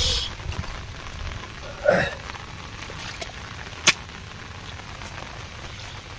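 Hands digging and scooping wet mud in shallow water: squelches and small splashes over a steady crackly hiss. There is a louder wet slap about two seconds in and a sharp click near four seconds in.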